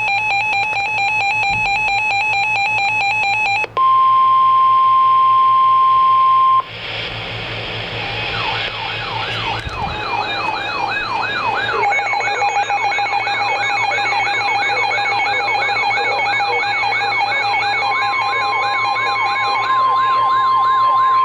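Emergency alert tones. A pulsing, buzzy tone lasts for about four seconds. Then comes a steady single tone for about three seconds, the weather radio's 1050 Hz warning tone. After that, a fast electronic siren rises and falls over and over with a steady tone beneath it, and the steady warning tone comes back near the end.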